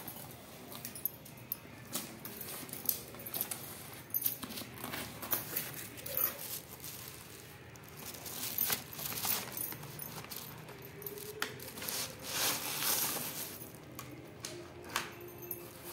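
Unboxing handling noise: cardboard flaps being pulled open and a plastic-film-wrapped stack of plastic storage containers being handled, the film crinkling, with scattered taps and clicks. The crinkling is loudest in two stretches, about a third and three quarters of the way through.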